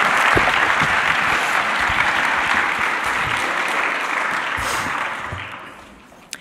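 Audience applauding, the clapping thinning out and dying away about five to six seconds in.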